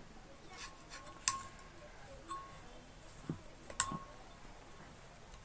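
Sparse light metallic clicks and taps, about five of them, from hands pressing a greased water seal down onto the shaft inside a domestic booster pump's metal housing. The two sharpest clicks ring briefly.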